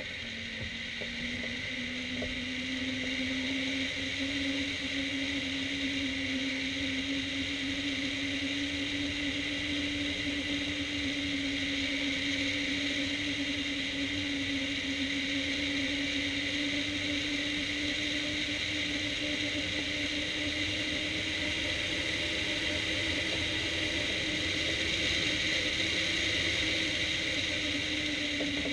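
Steady rush of airflow over a hang glider in flight, heard from a camera mounted on the wing, with a steady low hum underneath that drifts slowly in pitch.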